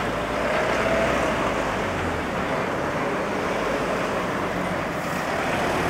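Road traffic passing on a highway: an SUV and then a box truck rolling slowly by, giving a steady rush of engine and tyre noise.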